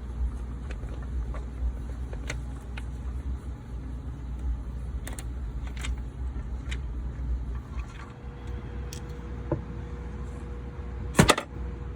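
Scattered light clicks and taps of hand tools on metal at the engine, over a low steady rumble, with one loud knock about eleven seconds in.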